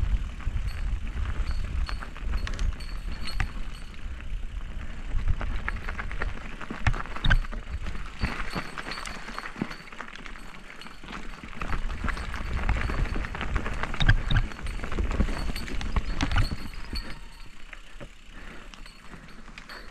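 Mountain bike riding down a dirt forest singletrack: tyres rolling over dirt and roots, with many sharp knocks and rattles from the bike over bumps and a low rumble of wind on the camera microphone. The rumble and knocks ease off over the last few seconds.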